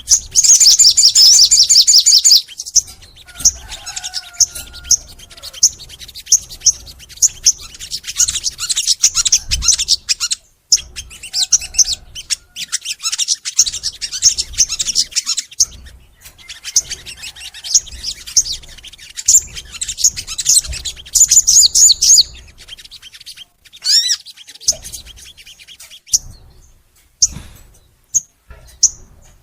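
A sogon songbird in full song: long runs of rapid, high chirps and trills, broken into phrases by short pauses, loudest in the first couple of seconds. A quick rising whistled note comes about three-quarters of the way through.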